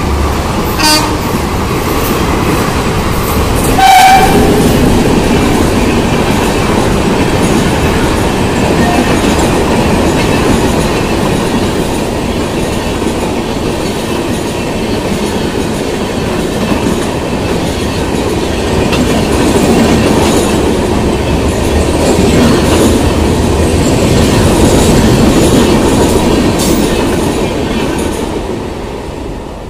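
Indian Railways passenger coaches rolling past at speed, a steady loud rumble of wheels with clickety-clack over the rail joints. A short train horn blast sounds about four seconds in. The rumble fades near the end as the last coach goes by.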